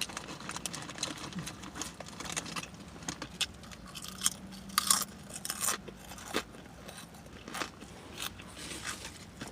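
Chewing of a cold-cut sub with the mouth open: irregular wet smacking and crunchy clicks.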